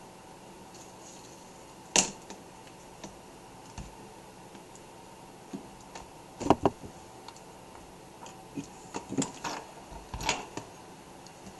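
Scattered plastic clicks and light knocks of a Toshiba Satellite laptop being handled and switched on: one sharp click about two seconds in, a quick double click in the middle, and a cluster of clicks near the end.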